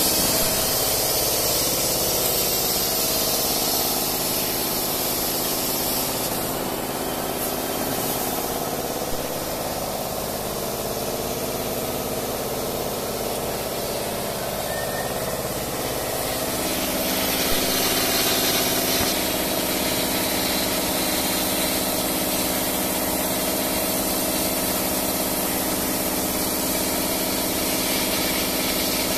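A 150 W CO2 laser cutting machine running as it cuts a wooden sheet: a steady hiss of air with a mechanical hum of steady tones under it.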